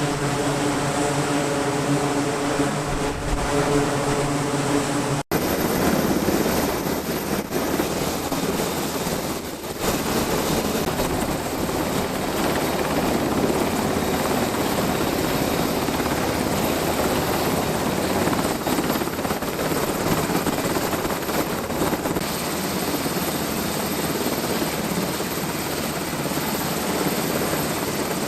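Steady engine noise: a humming engine tone with evenly spaced pitches for about five seconds, then, after an abrupt cut, a dense steady rushing roar.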